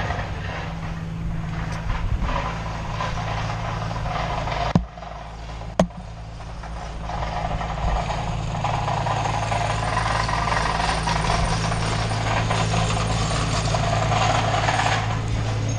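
Spider lift's engine running steadily at constant speed, with two sharp clicks about five and six seconds in. A louder rushing whir joins it from about halfway to near the end.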